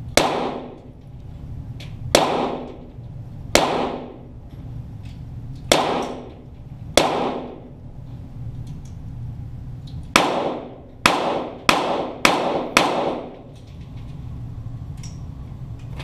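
Ten .22 rimfire shots from Walther GSP target pistols, heard from near the targets, each trailing off in echo. The first five come one to two seconds apart, then a quicker string of five about half a second apart.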